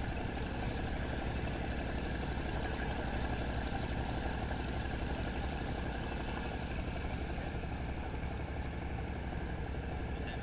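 Speedboat engine running steadily under way, with wind and water rushing past the open boat.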